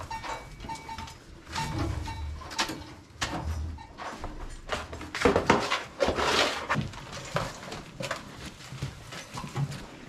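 A fork scraping along a cow manger's PVC liner and tossing old hay into a wheelbarrow: repeated irregular scrapes and rustles.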